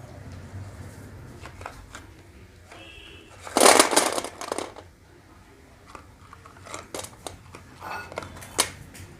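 Handling noise from a packet of slate pencils: a loud rustle of the packaging about three and a half seconds in, then scattered light clicks and taps as the pencils and packet are handled.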